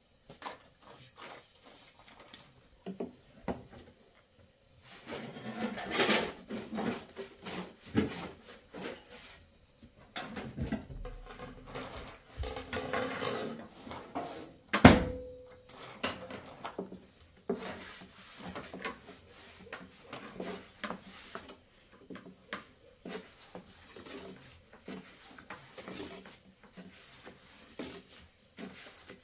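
A long thin wooden rolling pin rolling out flatbread dough on a low round board: irregular rubbing strokes and light clacks, louder in two stretches, with one sharp knock about fifteen seconds in.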